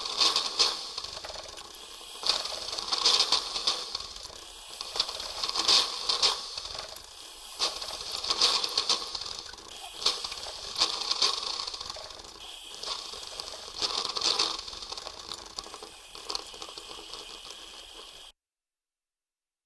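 Coffee machine running with a hissing, rattling sound that swells in surges about every two to three seconds, then cuts off suddenly near the end.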